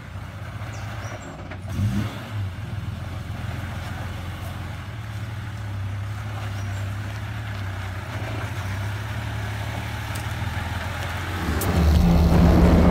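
Toyota 80 Series Land Cruiser engine running steadily at low revs as the truck crawls up a rutted mud track, with a couple of knocks about two seconds in. Music comes in loudly near the end.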